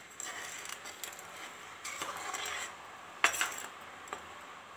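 Metal ladle stirring jaggery and water in a stainless steel pot, swishing the liquid and scraping and clinking against the pan, with one sharp clink about three seconds in.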